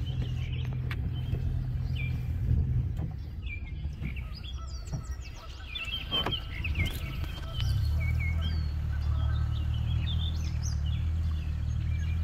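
Songbirds chirping and calling in quick short notes over a steady low hum. The hum eases off in the middle and comes back louder about eight seconds in.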